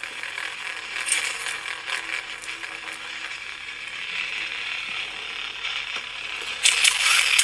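Crackling, buzzing hum of a lightsaber sound font playing through a small speaker, turning louder and hissier near the end.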